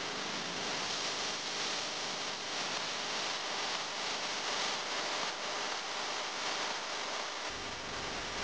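A steady hiss, with a low rumble coming in near the end.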